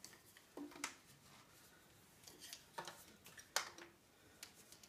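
White PVC pipes and T fittings knocking and clicking as they are handled and pushed loosely together. The sound is a scattering of faint, sharp taps, some with a short ring, and the loudest comes a little over three and a half seconds in.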